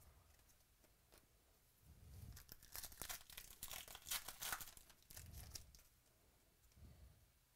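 A foil trading-card pack wrapper torn open and crinkled by hand, a dense run of crackles from about two to five seconds in, with a few soft low thumps of handling.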